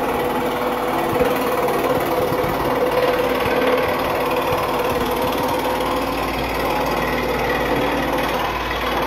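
Scroll saw running steadily, its up-and-down blade cutting through a thin wooden board.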